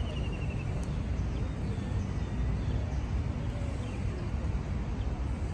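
Outdoor ambience: a steady low rumble with a few faint bird chirps, one short trill about the start.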